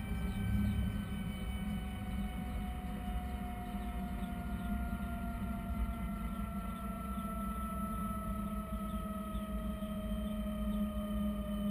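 Bell 206 JetRanger's Allison 250 turboshaft winding down on the ground, heard from the cockpit: several thin whining tones sink slowly in pitch over a steady low drone as the engine and the slowly turning main rotor run down.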